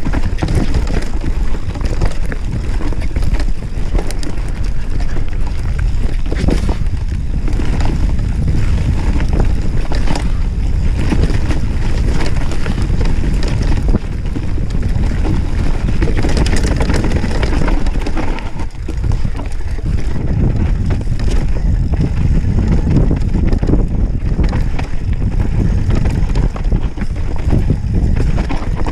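Mountain bike descending a dirt singletrack at speed: steady wind rush on the chest-mounted camera's microphone, tyres rolling over the dirt, and frequent knocks and rattles from the bike over bumps and roots.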